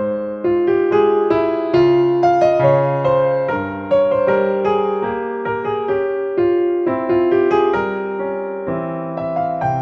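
Background music: a gentle piano melody played over chords, one note after another at an even pace.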